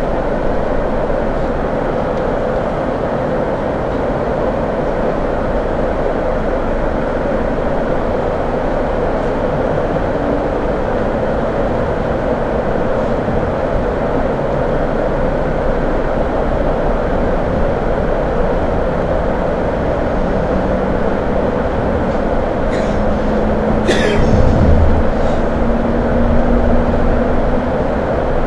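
CPTM series 2100 electric commuter train running, heard from inside the carriage: a steady rumble of wheels on rails that grows slowly louder as it gathers speed, with a faint rising motor whine in the last third. A few brief, sharp metallic squeals and clicks come about three-quarters of the way through.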